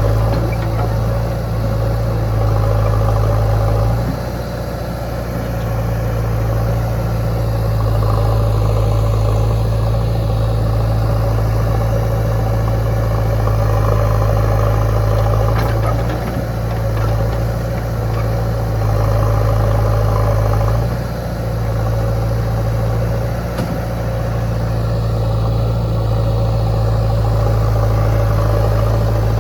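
Heavy diesel engine running steadily with a low drone. The drone dips briefly about four seconds in and again about twenty-one seconds in.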